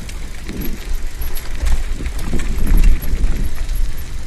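Mountain bike rattling and clicking over a rough dirt trail while being ridden, over a heavy, uneven low rumble of wind on the microphone.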